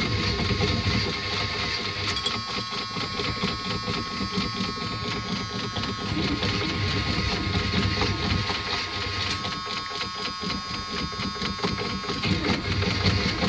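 Dashboard warning buzzer of a 1979 Chevy C10 pickup buzzing steadily with the ignition on and the engine not running.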